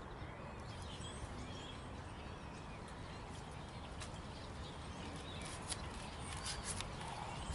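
Quiet outdoor ambience with a steady low rumble and a few faint bird chirps. From about five seconds in, scattered light ticks begin as the first raindrops start to fall.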